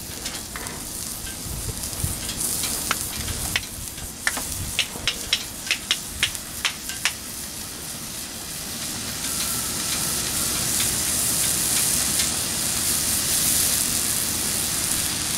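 Steak sizzling lightly on a hot flat-top griddle as its fat starts to render, with a run of short sharp pops and crackles between about three and seven seconds in. The sizzle grows louder in the second half.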